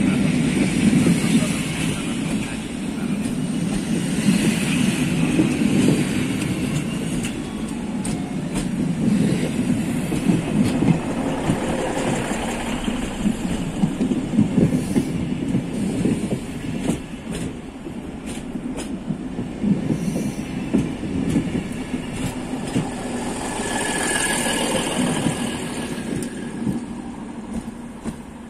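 Passenger coaches rolling past along a platform: a steady rumble of wheels on rails with clicks over the rail joints, fading as the train pulls away. A brief high squeal comes near the end.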